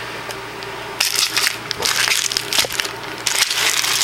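Trading-card packaging being torn open by hand. It begins with soft handling and turns, about a second in, into a long stretch of dense crinkling and crackling.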